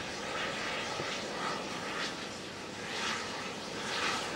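Jet airliner engines running: a steady rushing noise that swells slightly about once a second.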